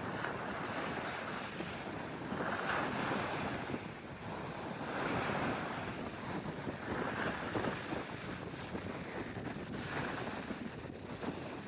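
Sea waves washing in, surging every two to three seconds, with wind buffeting the microphone.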